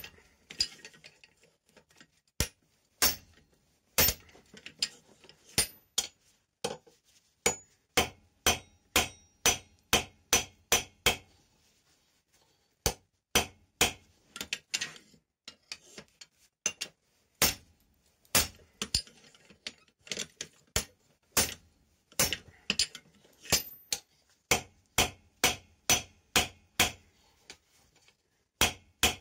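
Hand hammer striking red-hot steel on an anvil while forging: a long run of sharp metal blows, about two a second, with a short pause about halfway.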